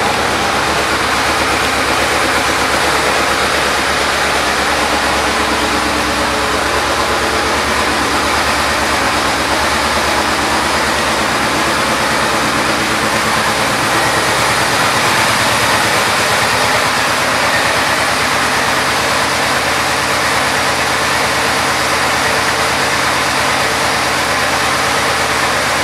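2006 Yamaha Royal Star Venture's 1294 cc V4 engine idling steadily.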